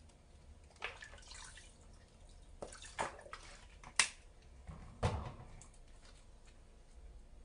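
Liquid seasoning poured from plastic bottles onto washed rice in a pot, with clicks from the bottles' caps and handling; a sharp click about four seconds in is the loudest, followed by a dull knock about a second later.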